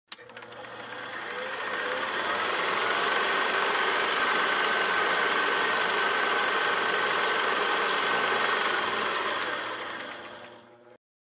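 Film projector sound effect: a steady mechanical clatter with crackles and scattered clicks. It fades in over about two seconds and fades out near the end.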